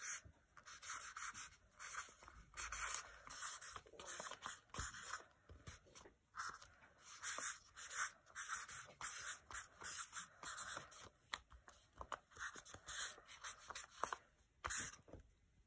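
Black permanent marker writing on a sheet of paper: many short scratchy strokes in quick succession, with brief pauses between letters and words.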